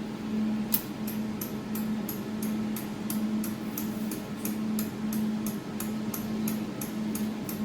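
Steady hum from the desktop laser welding machine, with light, regular ticking of about four ticks a second that begins about a second in. The ticking comes from the adjustment knob being turned to move the laser support back.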